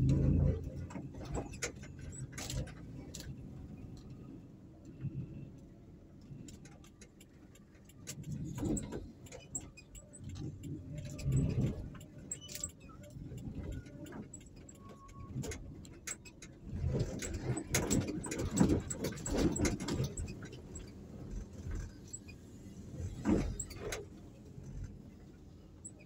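Road noise from inside a car driving slowly through town traffic: a steady low rumble that swells in several louder stretches, with light rattling and clicking in the cabin.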